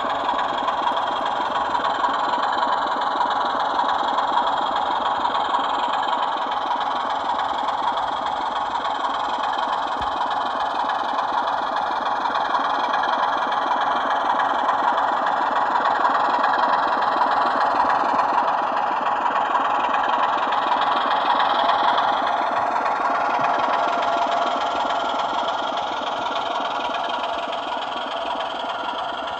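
Sound-fitted model Class 24 diesel locomotives playing Sulzer diesel engine sound through their onboard speakers. The engine sound runs steadily and thin in the bass, swelling slightly in the middle and easing off near the end.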